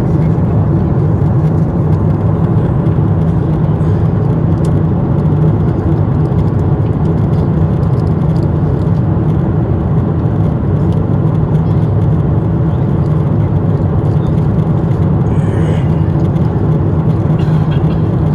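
Boeing 747-8i cabin noise at cruise: a steady low rumble of airflow and the four GEnx-2B engines, with no change in level throughout.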